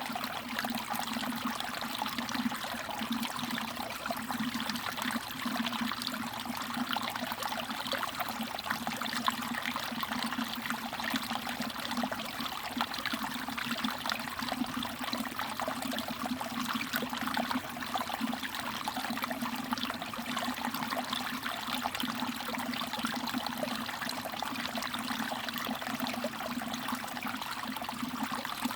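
Mountain stream water trickling and dripping steadily over rocks, with a low steady burble under it.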